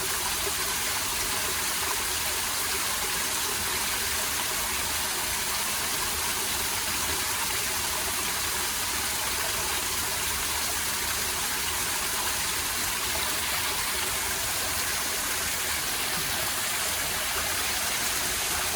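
Stream water flowing, a steady, even rushing hiss with no change throughout.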